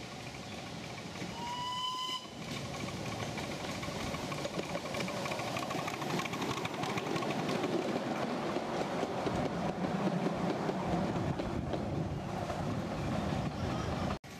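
Miniature railway locomotive gives a short whistle, slightly rising in pitch, about a second in; then the train's running noise builds, loudest about ten seconds in, and cuts off suddenly near the end.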